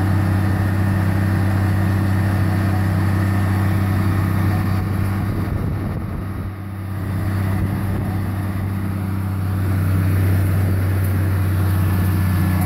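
Water-well drilling rig's engine running steadily with a constant low hum, dipping briefly in level about six seconds in, while drilling foam flows from the borehole.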